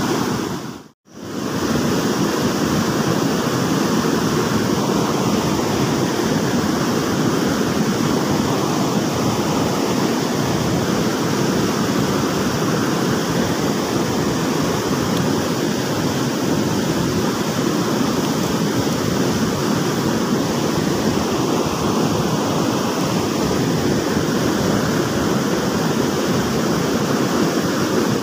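Fast-flowing river water rushing steadily, with a brief drop-out about a second in.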